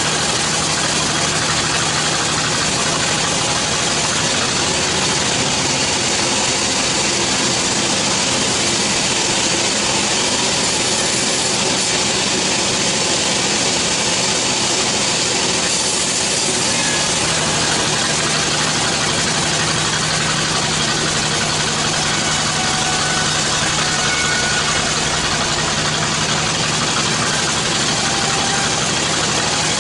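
Band sawmill running steadily: the mill's drive hums under the hiss of the band blade cutting through a log.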